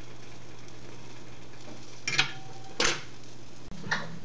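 A hot dog sizzling steadily in a hot skillet, with a low hum underneath. Three sharp knocks come about two, three and four seconds in.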